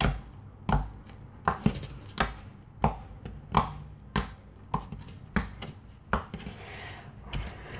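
Slime being handled by hand: a series of short soft taps and thumps, about a dozen, a little under two a second.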